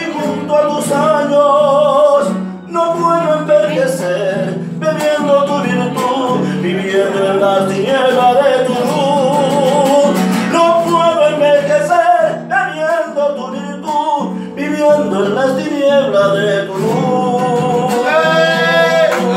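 A man singing a Spanish-language ballad to acoustic guitar accompaniment, ending on a long held note with vibrato near the end.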